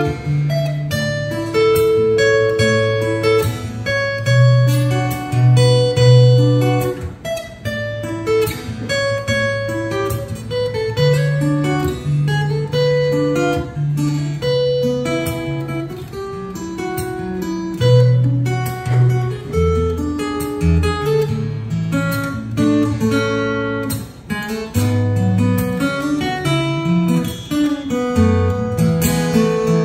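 Solo acoustic guitar played fingerstyle: plucked bass notes under a moving melody line, an instrumental piece.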